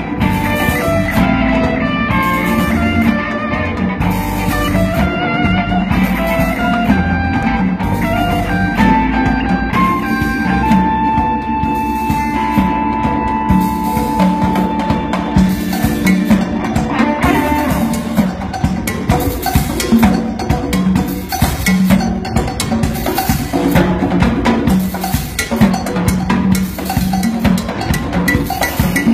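World-beat rock band playing live, with drum kit and guitar. About ten seconds in, one high note is held for several seconds, and the drums come forward in the second half.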